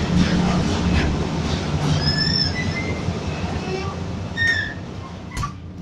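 Steady heavy rumble and hum of a running Lintec CSD 3000 asphalt mixing plant, with short high metallic squeals about two seconds in and again past four seconds. The rumble eases off near the end.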